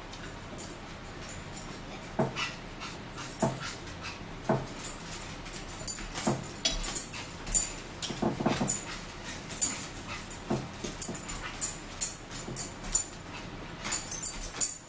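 A dog whimpering in repeated short cries, every second or two, with sharp clicks of forks on plates.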